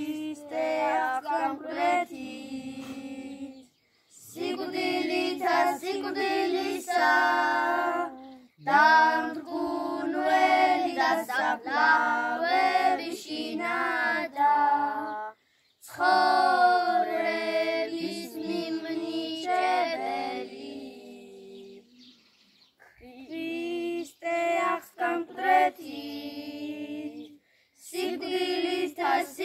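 A small group of children singing a Georgian church chant (galoba) unaccompanied, in long phrases with short pauses between them.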